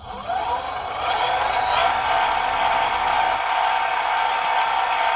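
Sieg 7x14 mini lathe, driven by a brushless motor and ESC, spinning up to a little over 2,000 RPM in high gear and running free with no load. A mechanical whine rises in pitch over the first second, then holds steady, with a high-pitched whine above it.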